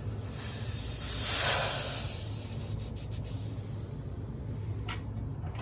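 Leftover refrigerant gas hissing out of the system as it is bled off, swelling for about two seconds and then fading, over a steady low hum.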